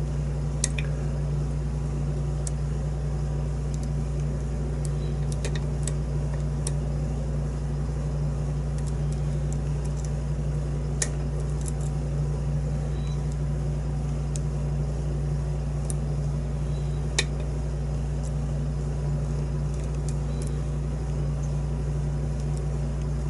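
A steady low hum, with a handful of faint, sharp ticks scattered through it from a lock pick working the pins inside a five-pin challenge lock.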